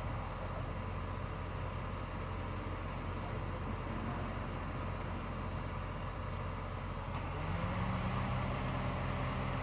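Steady low motor hum; about seven and a half seconds in, a second, higher-pitched hum rises in and then holds steady.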